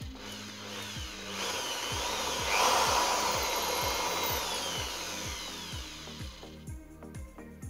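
Electric drill with a small bit boring into the wooden body of a fishing lure. The motor's pitch rises and falls as the trigger is worked, and it stops about a second before the end. Background music with a steady beat plays underneath.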